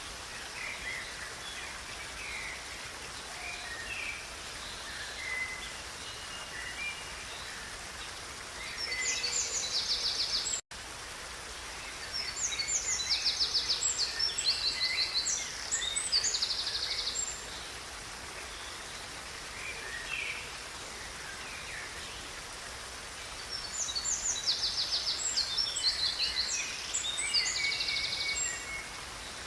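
Songbirds singing over the steady rush of a river. A rapid, trilling song phrase comes three times, about a third of the way in, in the middle, and near the end, with softer scattered calls between; the sound drops out for a split second about a third of the way in.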